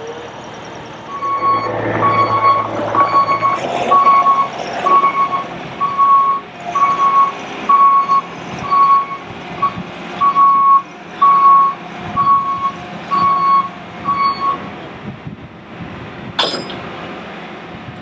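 Bobcat T595 compact track loader reversing, its backup alarm giving a steady single-pitch beep a little more than once a second over the running engine. The beeping stops a few seconds before the end, followed by one sharp clank.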